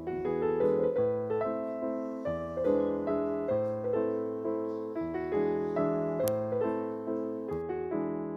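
Background piano music: a steady run of struck notes over lower bass notes.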